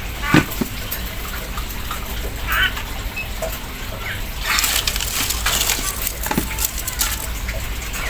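Small scissors snipping crickets into pieces, with clicks and rustles of handling, over a steady background noise. A short chirp about two and a half seconds in.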